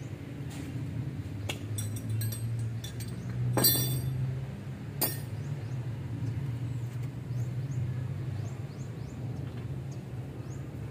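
Metal clinks and knocks from work on a minibus drum brake at the wheel hub: a few sharp strikes between about one and five seconds in, the loudest near four seconds, over a steady low hum.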